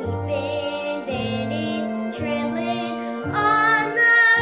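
A boy singing a musical-theatre song with instrumental accompaniment, rising to a louder, held high note near the end.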